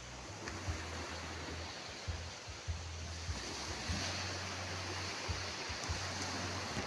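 Small sea waves breaking and washing up a sandy beach, a steady rush of surf that swells a little louder midway. A low rumble of wind buffets the microphone underneath.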